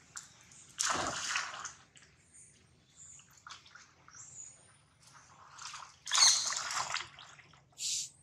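Monkeys splashing as they wade and swim through a shallow muddy stream: two louder bursts of splashing, about a second in and about six seconds in, with smaller splashes and sloshes between.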